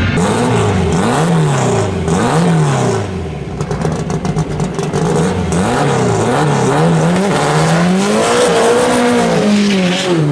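A drag-race VW Karmann Ghia's engine revving up and down in repeated quick blips, with a stretch of rapid crackle in the middle. Near the end it holds higher revs for a couple of seconds before dropping.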